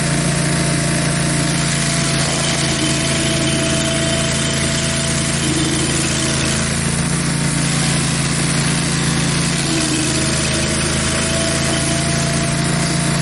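Barreto 30G 19-inch stump grinder running steadily at full throttle while it grinds down a tree stump.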